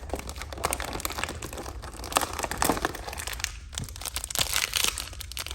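Crinkling and crackling of toy packaging being handled and torn open, as a door of a toy blind box is opened; the rustling thins out near the end.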